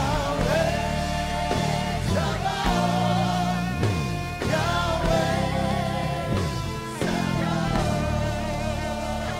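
Live gospel worship music: a band with guitar and drums playing under voices that hold long, wavering notes.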